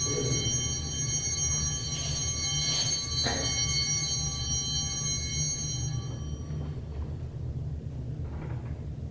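Altar bells ringing at the elevation of the chalice after the consecration, a high shimmering ring that dies away about six seconds in.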